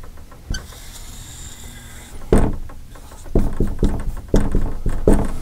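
Dry-erase marker drawing on a whiteboard: a light tap about half a second in, one long stroke a little after two seconds, then a quick run of short strokes near the end as letters are written.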